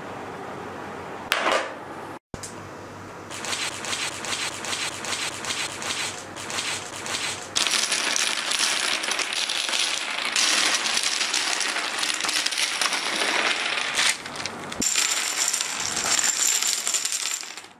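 Many small plastic Artec building blocks clattering as they are poured out and tumble onto a tabletop: a dense rattle of clicks that becomes louder and thicker about halfway through.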